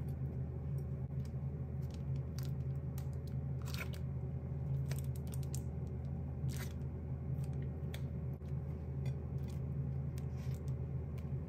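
Scattered clicks and light crunches of metal tongs and hands handling crisp fried pieces and soft bao buns on a plate, over a steady low hum.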